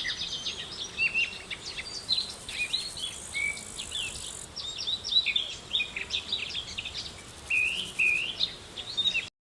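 Several birds chirping and calling in quick, overlapping short notes, with an insect's high buzzing trill coming in for a couple of seconds. The sound cuts off suddenly near the end.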